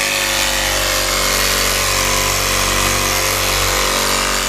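Power windshield cut-out tool (the extractor) running steadily at a constant pitch, used to cut the urethane along the bottom of a windshield.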